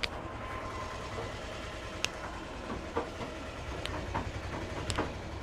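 About half a dozen sharp taps and clicks from a barber's hands during a head massage, coming at uneven gaps over a steady low rumble.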